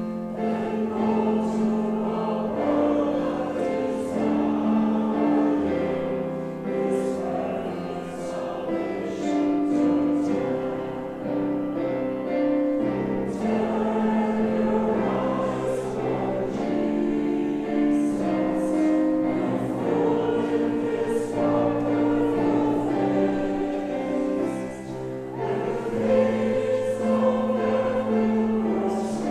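Choir singing a hymn in slow held chords.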